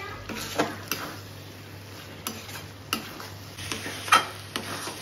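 A spatula scraping and knocking against a metal kadai while stirring a thick, drying mixture of potato, rice and fish bones, with soft sizzling underneath. Several sharp scrapes come at uneven intervals; the loudest is about four seconds in.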